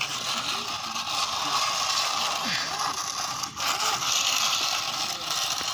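Plastic toy excavator moved by hand over concrete, its crawler tracks and parts giving a steady rattling, scraping clatter that drops out briefly about three and a half seconds in.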